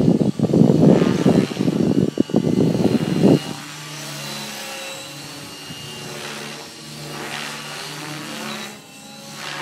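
A loud, rough rumble of wind buffeting the microphone for about the first three and a half seconds, cutting off suddenly. Then an Align T-Rex 600 Pro radio-controlled helicopter flying high overhead: a steady hum from its rotors and drive that swells and fades as it moves.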